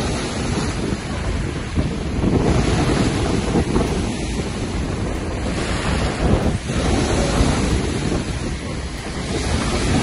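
Choppy sea waves washing against the shore, with wind buffeting the microphone; the rushing noise swells and eases now and then.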